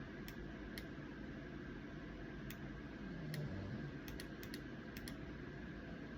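A sleeping pug snoring softly, with one low, falling snore about three seconds in. Light, irregular clicks sound throughout.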